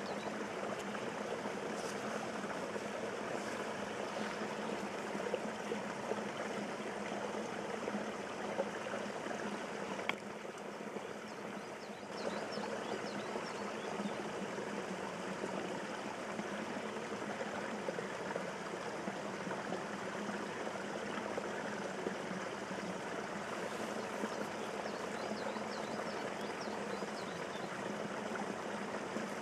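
Water running steadily through and over a beaver dam of packed sticks, an even trickling flow that drops slightly for a couple of seconds about ten seconds in.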